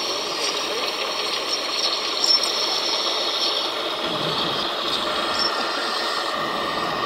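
Electric motors and gearboxes of radio-controlled model construction machines running: a steady high whine with light mechanical rattling and small clicks.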